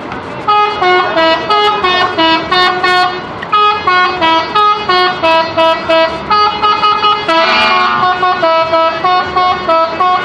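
Telolet musical horn of a Bejeu Super High Deck bus playing a quick tune. The notes are mostly short and honked, with a few held ones, and there is a brief break about three seconds in.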